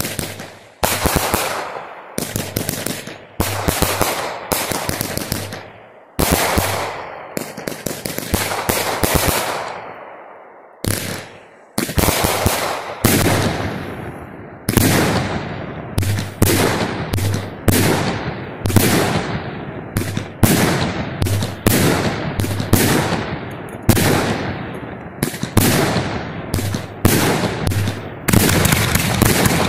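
Consumer aerial fireworks going off shot after shot, each sharp report fading away in a crackle of bursting stars. The shots come about a second apart at first and quicken after about twelve seconds into a near-continuous barrage.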